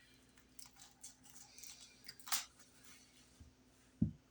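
Short crackles and rustles of packaging being handled and opened, the loudest about two seconds in, followed by two dull low thumps near the end.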